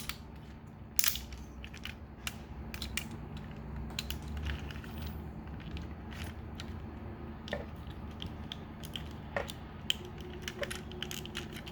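Small plastic clicks and rattles of a Transformers Masterpiece Ratchet action figure being handled as a weapon is worked into its hand. The clicks come irregularly, a dozen or more, over a steady low hum.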